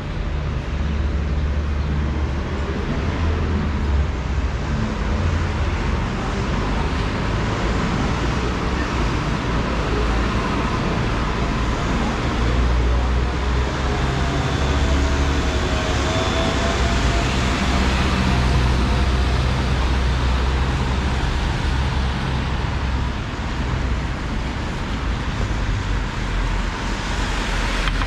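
City street traffic: a steady rumble and hiss of passing vehicles. About halfway through, a passing vehicle adds a brief whine that dips and then rises in pitch.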